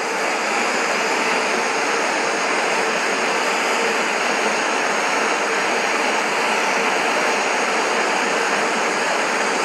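Bernzomatic TS8000 MAPP gas hand torch burning with a steady hiss, heating a joint until the silver solder melts and flows.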